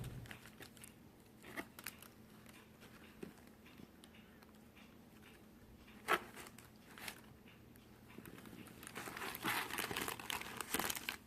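Faint crinkling and rustling of packaging being handled as the box is unpacked, with a few scattered soft clicks. The crinkling grows denser over the last few seconds.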